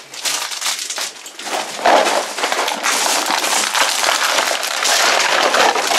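Candy wrappers and plastic packaging crinkling and rustling as hands rummage through a pile of wrapped sweets and handle a plastic candy tub: a dense run of crackles and small clicks.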